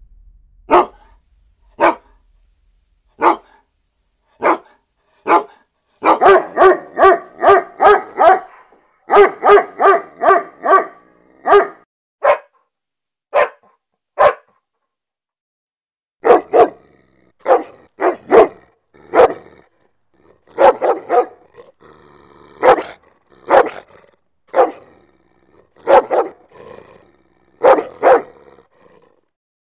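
A dog barking aggressively: single loud barks about a second apart, then fast runs of several barks a second, a short pause about halfway, and more barks after it.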